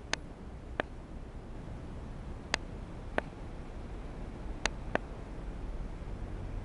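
Six sharp, short clicks at uneven intervals over a steady low rumble.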